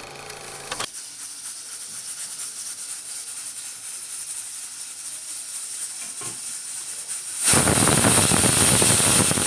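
Pressure cooker on the stove letting off a steady hiss of steam, then its whistle blowing loudly for about three seconds near the end: a release of steam that signals full pressure while rice cooks inside.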